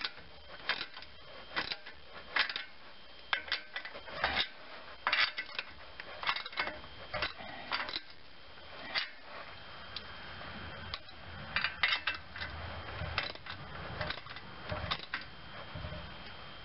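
Socket ratchet clicking in quick runs of short strokes, with brief pauses, as the nuts on the U-bolt clamps of an exhaust pipe butt splice are cranked down, evenly back and forth between them.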